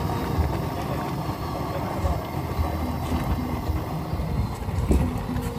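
LPG gas stove burner roaring steadily under a pot of soup at the boil.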